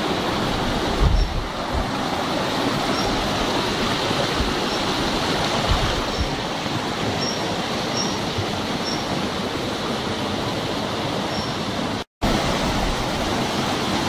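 A small waterfall cascade and stream rushing steadily over rocks, with a few short high peeps recurring faintly above it. The sound cuts out for an instant near the end.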